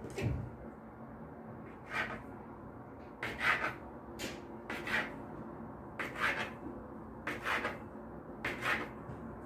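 Kitchen knife cutting a log of khinkali dough into pieces on a wooden table: a series of short scratchy cuts, roughly one a second, each ending on the board.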